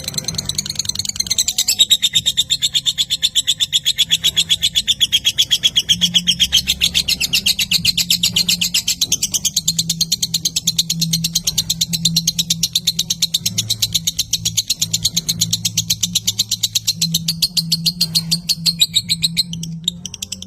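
Lovebird singing its long chattering song (ngekek panjang): a fast, even run of sharp, high repeated notes held on for many seconds, breaking off briefly near the end.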